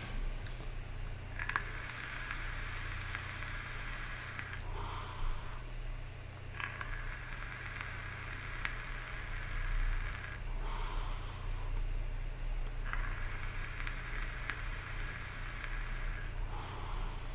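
Lost Vape Orion pod vape with an Evolv DNA Go board fired three times in watt mode: each puff is a few seconds of steady hiss and coil sizzle as air is drawn through the pod, with short pauses between puffs.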